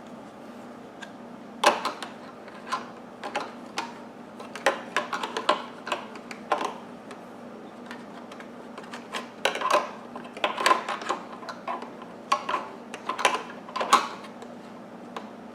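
Irregular clicks and clacks of hard plastic as vacuum accessory tools are handled and pushed into the upright vacuum's onboard storage holders, with a few louder knocks scattered throughout.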